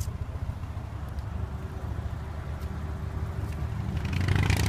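Subaru Legacy B4 RSK's twin-turbo flat-four idling steadily through its stock exhaust, a low, even drone. A brief louder rush of noise comes near the end.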